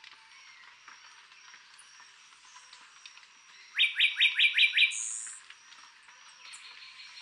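Puerto Rican bullfinch singing: a quick run of six rising whistled notes starting about four seconds in, ending in a short buzzy note.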